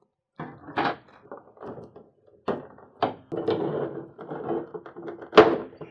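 Clear plastic blister trays and plastic bags being handled and pulled apart, crinkling and clacking, with several sharp clacks and the loudest snap near the end.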